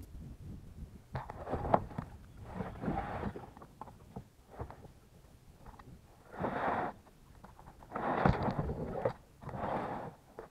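Kayak being hauled by hand over a fallen log and leafy, brushy ground: the hull scrapes and rustles in uneven rough pulls, each lasting about half a second to a second, with the loudest pulls in the second half.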